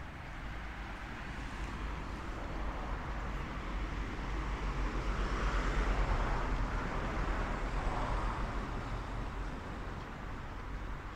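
A car driving past on the street, its noise building to a peak about halfway through and then fading away.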